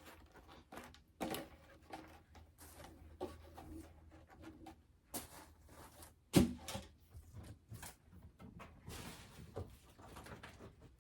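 Parts being handled in a cardboard box: scattered light knocks and rustling, with one louder thump about six seconds in and a longer scraping rustle near the end.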